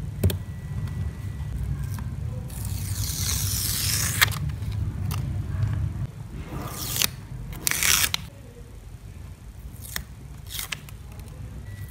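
Strips of adhesive tape being peeled off a notebook's paper cover, with fingers rubbing over it: several ripping, scraping bursts, a long one a few seconds in and shorter, sharper ones after, over a steady low hum.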